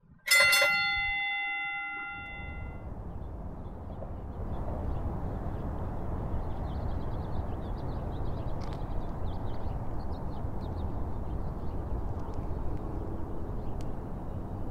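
A bright chime sting, several bell-like tones struck together that ring out and fade over about two seconds. Then a steady low outdoor rumble, with faint high chirps in the middle.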